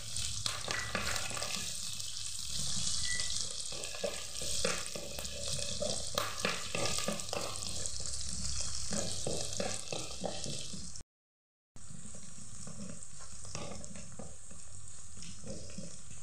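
Chopped garlic, ginger and green chillies sizzling in hot oil in a clay pot, stirred with a wooden spatula that scrapes and clicks against the pot. The sound cuts out completely for under a second about two-thirds of the way through.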